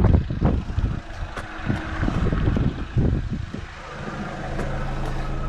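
Knocks and bumps over a low rumble inside a camper van, then a steady low engine hum that sets in about four seconds in.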